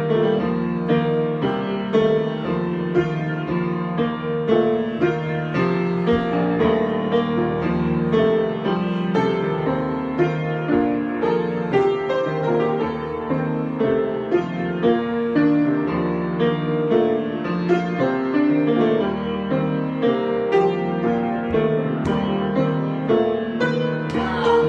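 Improvised piano music: a continuous flow of notes and chords.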